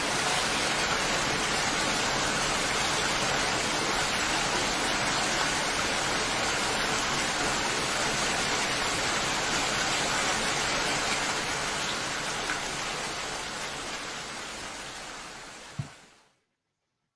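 Recorded rain ambience: a steady, even hiss of heavy rainfall that fades out near the end.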